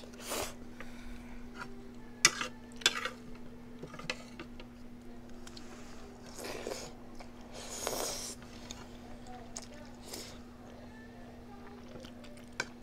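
Eating utensils clicking sharply against dishes a few times, with softer eating noises between, over a steady faint hum.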